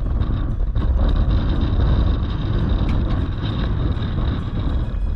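Wind buffeting the microphone in a loud, steady low rumble, with a few faint ticks on top.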